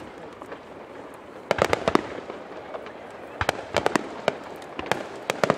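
Aerial fireworks bursting: three quick volleys of sharp crackling pops, a second or two apart.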